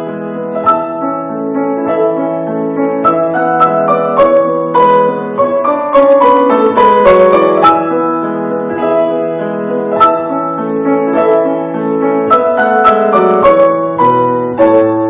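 Instrumental piano music: a melody of many quick notes over held lower notes.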